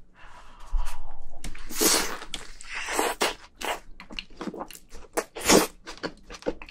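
Close-miked biting into a hamburger and chewing it: a run of short, wet, crunchy mouth noises, loudest at about two seconds and again at about five and a half seconds in.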